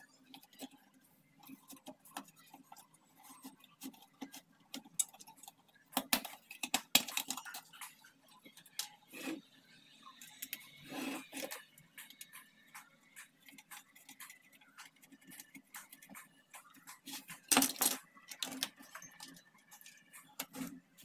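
Scattered light clicks and taps of circuit boards and ribbon cables being handled and fitted into a sheet-metal monitor chassis, with two louder clattering bursts about six and eighteen seconds in.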